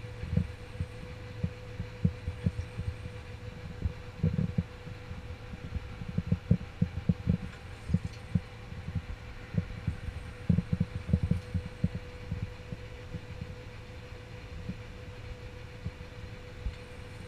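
Steady drone of a river motor vessel's diesel engine heard inside the wheelhouse, with irregular low thumps scattered through the first two-thirds that die away near the end.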